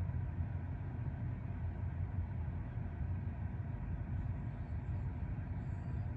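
Sounder commuter train rolling slowly through a station: a steady low rumble.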